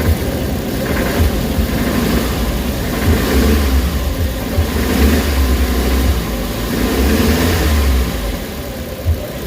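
Suzuki Carry engine revved and held at high revs, then easing back near the end. The mechanic diagnoses this engine with low power, vibration and knocking at the main journal.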